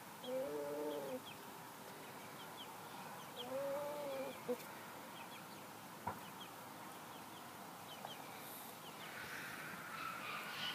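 Liège gamefowl rooster crowing twice, each a short, deep, arched crow under a second long, about three seconds apart.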